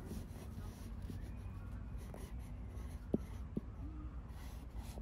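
Pencil sketching on paper over a clipboard, with light scratching strokes and two sharp taps a little past halfway.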